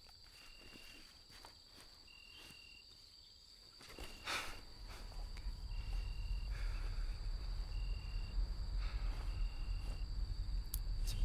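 Night insect ambience with crickets: a steady high trill with a shorter chirp repeating about every second and a half. A brief rustle comes about four seconds in, then a low rumble rises and carries on beneath the insects.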